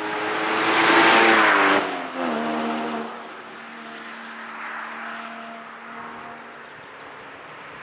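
Porsche Boxster passing the camera at speed, loudest about a second in, its engine note dropping in pitch as it goes by and falling away sharply just before two seconds. A second car, a Renault Mégane RS, follows further off with a quieter, steadier engine note.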